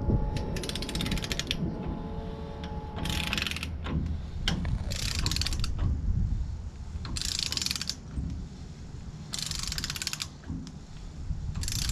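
Torque wrench ratchet turning a rear hub's nylon-insert lock nut on a Dana 70/80 axle, too tight from the nylon insert to spin down by hand. It gives a fast run of pawl clicks on each swing, five or six bursts about two seconds apart, over a steady low rumble.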